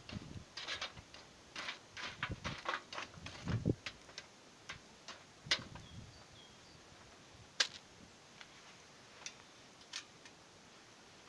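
Lumps of burning charcoal being raked and pushed about with a poker in a steel barbecue grill: a quick run of clinks and knocks for the first few seconds, then only occasional single clicks, one of them as the wire grate is set on near the end.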